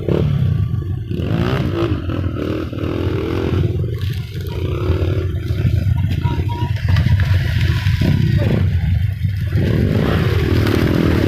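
Road traffic passing close by: large vehicle engines running and revving, with rattling.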